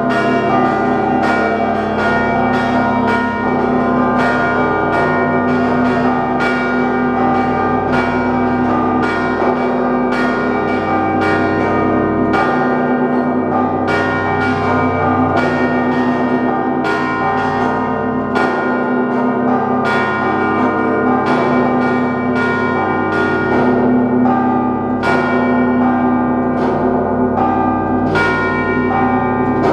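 Russian Orthodox belfry bells ringing together: quick, evenly repeated strikes of the smaller bells, about two or three a second, over the steady hum of the larger bells.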